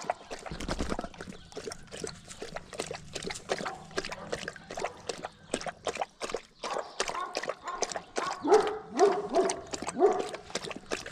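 Livestock guardian dog lapping water, a steady run of quick splashy laps several a second. Near the end a dog whines in four short rising calls.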